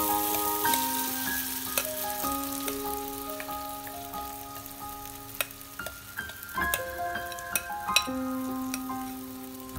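Thick lentil batter sizzling as it is poured from a bowl into hot oil in a nonstick pan, strongest at the start, with a few sharp clicks of the bowl and batter against the pan. Background music of slow held notes plays throughout.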